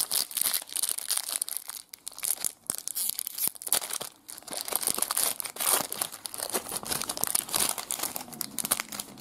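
Foil trading-card pack being torn open and its wrapper crinkled by hand: a dense, irregular crinkling full of small sharp crackles.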